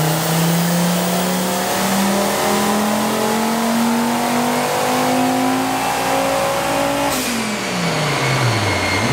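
Turbocharged VW 07K 2.5-litre five-cylinder engine making a full-throttle pull on a chassis dyno, its pitch climbing steadily on about 10 psi of wastegate boost up to 6,000 rpm. About seven seconds in the throttle closes, the sound changes abruptly, and the revs fall away.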